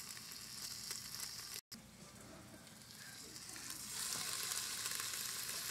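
Marinated oxtails sizzling and spitting as they sear in hot oil in a nonstick pot. The sizzle cuts out for a moment about one and a half seconds in and grows louder from about four seconds in.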